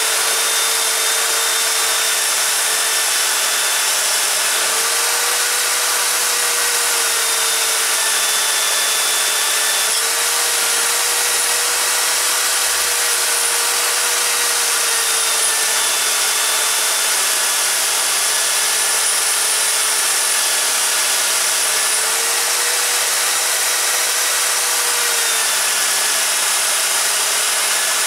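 Wire wheel brush on a bench-clamped power tool running steadily while a steel spanner is held against it, scrubbing it clean. The motor hum shifts slightly in pitch a few times as the spanner is pressed in and eased off, under a steady scratchy hiss of wire on metal.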